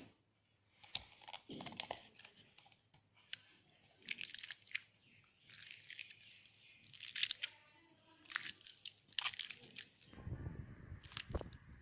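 Slime from a Barrel o' Slime toy being squeezed and kneaded by hand, giving repeated bursts of fine crackling, squelching pops every second or so. A deeper handling noise joins in near the end.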